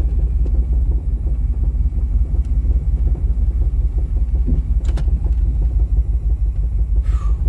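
Pontiac Trans Am's 305 Crossfire V8 running with a steady low rumble as the car is moved slowly, its transmission slipping badly. A sharp click about five seconds in.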